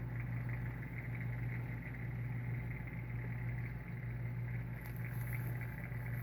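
A steady low hum with light background noise, unchanging throughout, and faint small ticks about five seconds in.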